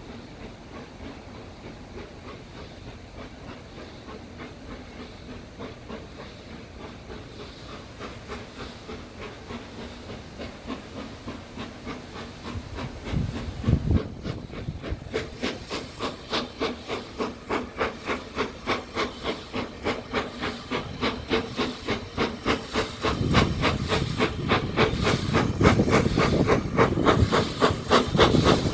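BR Standard Class 4MT 4-6-0 steam locomotive No 75078 approaching under hard steam, its exhaust beats growing steadily louder to about two to three a second. Low rumbles come about halfway through and again in the last few seconds.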